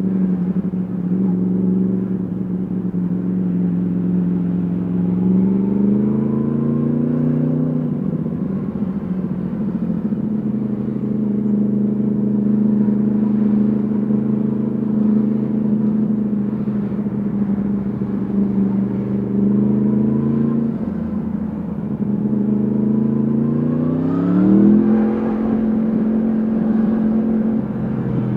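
Yamaha MT-10 SP's crossplane inline-four engine running through an Akrapovic exhaust while riding in traffic. It holds a steady pitch for long stretches, rises as the throttle opens about six seconds in, dips off the throttle around twenty seconds in, then revs up sharply near the end before dropping back.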